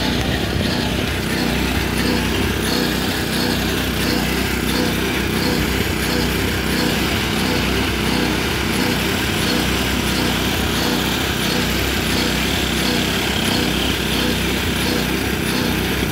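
A small engine running steadily, with an even drone and no pauses.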